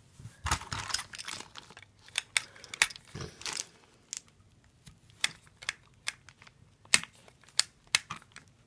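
Screwdriver working the screw of a plastic toy train's battery cover: irregular sharp clicks and short scrapes of the metal tip and the handled plastic.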